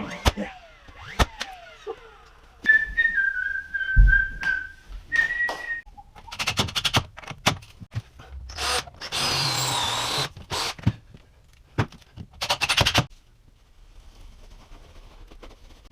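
A person whistling a few held, slightly wavering notes, among scattered knocks and clicks, with a louder rushing burst of noise lasting about a second and a half about nine seconds in.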